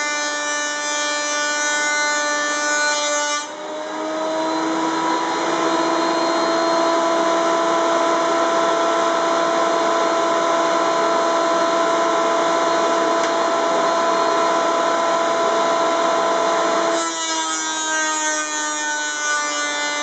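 Ridgid 13-inch thickness planer running with a steady motor whine. About three and a half seconds in, a walnut board feeds through the cutter head for a final thin pass, and a dense cutting hiss is added while the whine shifts pitch. About seventeen seconds in the board clears and the planer goes back to running free.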